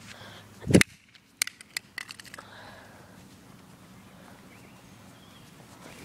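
A walkie-talkie slammed against the ground with one loud crack, followed by a quick run of lighter clicks and clatters as it bounces and loose pieces scatter.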